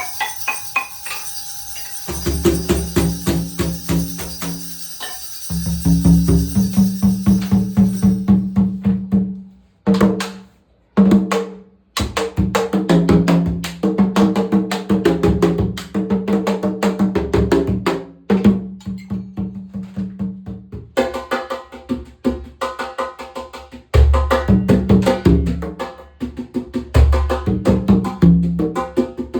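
Conga drums played in fast rhythmic patterns of hand strokes, with ringing pitched tones and a brief break about ten seconds in.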